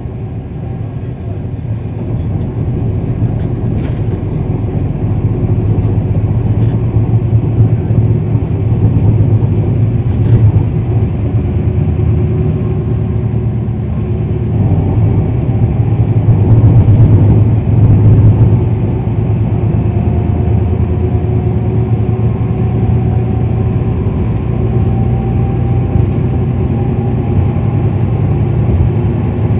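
Cummins ISL9 diesel engine of a 2010 NABI 40-SFW transit bus running under load as the bus drives, heard from on board as a heavy low drone that builds over the first several seconds. A faint whine rises slowly in pitch through the second half, with a few light rattles.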